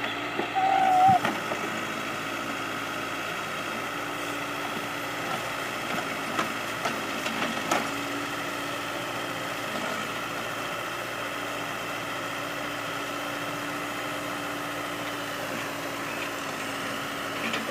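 Case backhoe's diesel engine running steadily, with a few sharp knocks near the middle. A brief, loud wavering tone comes about a second in.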